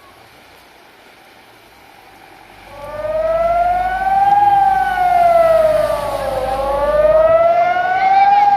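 Warning siren sounding a flood alert, starting loud about three seconds in and wailing slowly up and down, each rise or fall taking about two seconds. A low rumble sits under it for most of its length.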